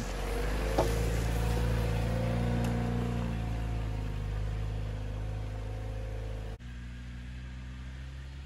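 Jeep Wrangler Rubicon's engine pulling the SUV up a steep dirt slope, a steady low drone under load. It drops abruptly quieter about six and a half seconds in.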